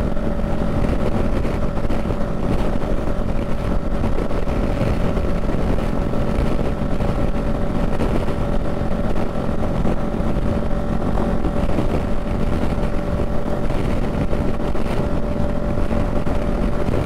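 Honda Rebel 500's parallel-twin engine holding a steady highway cruise in sixth gear, a constant drone that does not change pitch, under a haze of wind and road noise.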